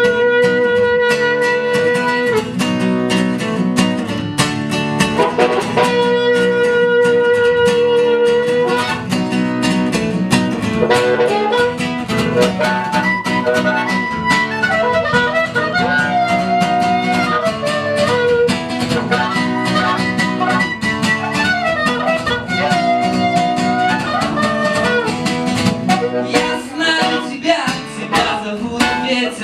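Band playing an instrumental passage: guitar strumming a steady rhythm under a melody of long held notes.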